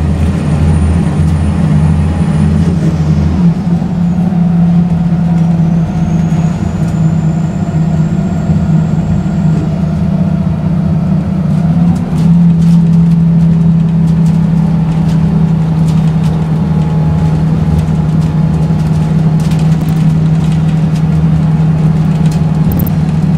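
Scania L94UB CNG bus with a ZF automatic gearbox, heard from inside the cabin while under way: a steady low engine drone with a faint high whine that rises and falls, growing louder about halfway through as it pulls harder. Near the end the body gives sharp clicks over bumps.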